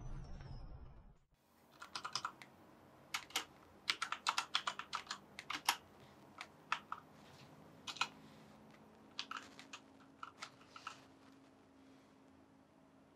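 Typing on a computer keyboard: irregular runs of sharp key clicks with short pauses between them. It opens with a low rumble that cuts off about a second in.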